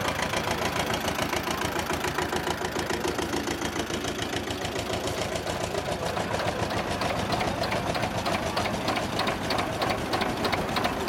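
Old tractor diesel engines chugging as they drive past in turn, first a Fahr D17 and then a Schlüter, with a fast, even knocking beat. The beat grows sharper in the second half as the Schlüter comes close.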